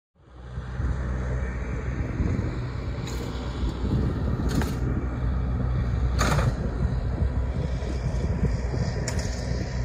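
Outdoor shoreline ambience on a shingle beach: a steady low rumble, likely wind on the microphone, fading in at the start, with a few brief hissing washes of small waves on the pebbles.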